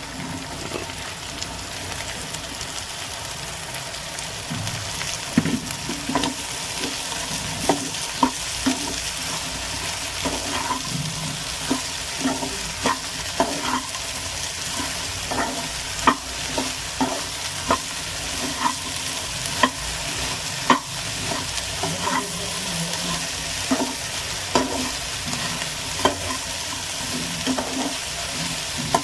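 Okra sizzling as it fries in the pan, stirred with a spoon that scrapes and clinks against the pan about once a second.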